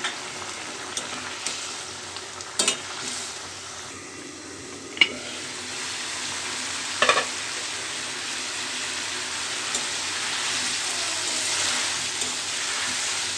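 Potatoes and spices sizzling steadily in a karai as they are sautéed in the masala, with a few sharp knocks of a metal ladle against the pan. The sizzle grows louder in the last few seconds.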